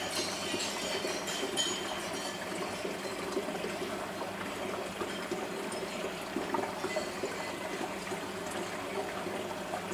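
Aquarium water trickling and splashing steadily, as from a filter or pump outlet, with scattered faint clicks.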